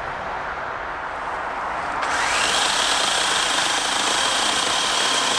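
DeWalt cordless electric chainsaw running and cutting into a thin standing pole. Its motor whine rises in pitch and loudness about two seconds in, then holds steady.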